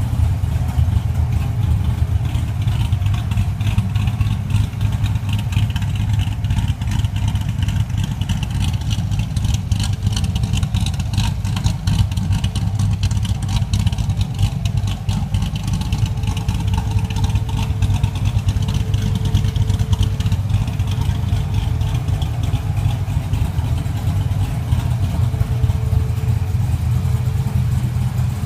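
Chevrolet Corvette ZR1's V8 engine idling roughly, a steady deep running sound with an uneven, pulsing loudness.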